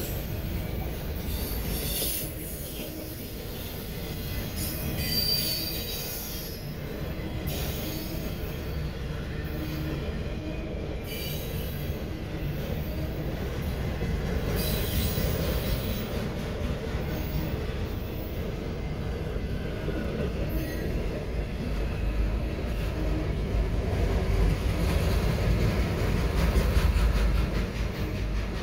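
CSX autorack freight cars rolling past close by: a steady rumble of steel wheels on rail, with brief high-pitched wheel squeals in the first few seconds. The rumble grows louder near the end.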